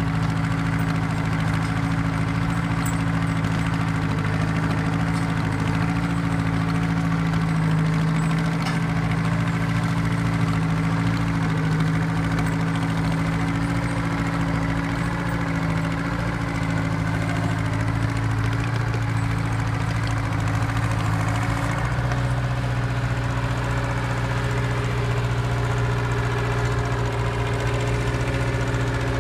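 Vintage Austin-Western motor grader's engine running steadily at idle, its note shifting slightly about three quarters of the way through.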